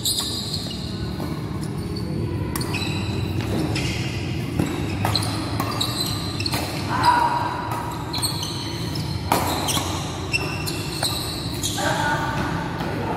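Doubles badminton rally in a large echoing hall: rackets strike the shuttlecock with sharp cracks at irregular intervals, among players' footsteps and brief shoe squeaks on the court.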